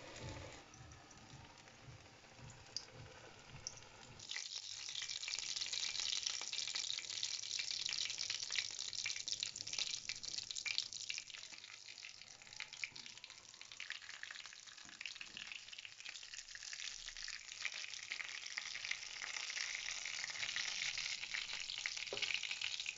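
Hot oil sizzling and crackling as breadcrumb-coated potato patties deep-fry in a pot. Quieter for the first four seconds, then a dense steady crackle that eases a little midway and builds again near the end.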